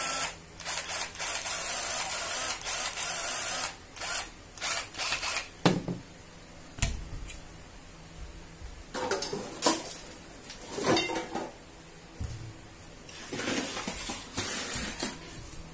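A 12 V cordless impact driver's motor whirs steadily for a few seconds in a test run after repair. It is followed by scattered knocks and clatters as tools are handled and set down on a table.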